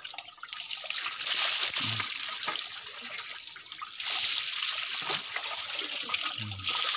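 Water trickling and splashing in a shallow river pool that has almost stopped flowing.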